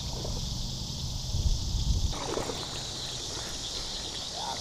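A steady outdoor chorus of insects, a high buzzing trill with a faint pulse in it. A low rumble underlies the first two seconds and cuts off abruptly about two seconds in.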